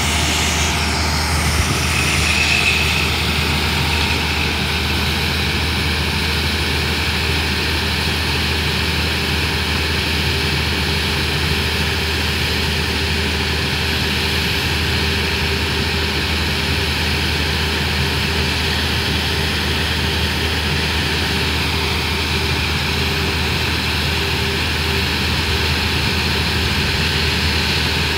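Case harvester's diesel engine running at a steady speed, a constant heavy drone, with a brief higher whine about two seconds in.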